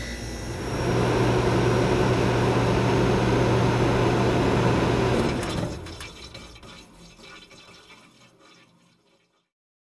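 Cartoon rocket-launch sound effect: a loud rushing blast with a steady low rumble beneath it that builds over the first second and holds. It fades away from about halfway through and is gone shortly before the end.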